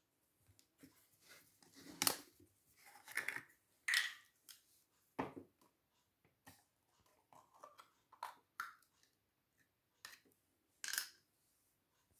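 A plastic bottle of Stihl mower oil is handled and opened, making a scattered series of faint clicks, scrapes and plastic crinkles.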